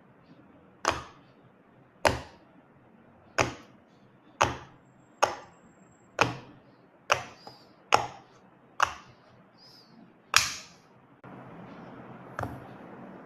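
Silicone pop-it fidget toy bubbles being pressed one at a time: a sharp pop roughly once a second, about eleven in all. A faint steady hiss comes in near the end.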